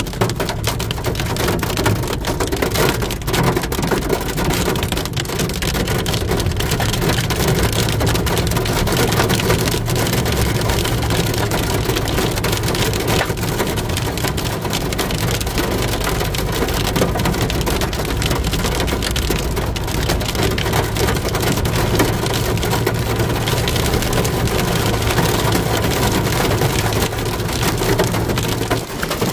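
Heavy rain falling, a dense patter of drops striking a surface, with a steady low hum beneath it.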